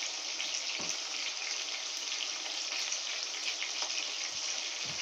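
Chicken pieces frying in hot oil in a pot: a steady sizzle with fine crackling, with a couple of soft knocks.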